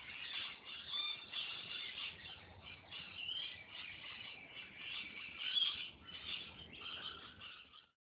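A busy chorus of many small birds chirping and twittering at once, high-pitched and overlapping, fading out right at the end.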